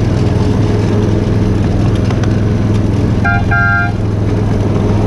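Miniature ride-on train running, with a steady low drone from its drive and wheels. About three seconds in a horn toots twice, a brief note then a slightly longer one.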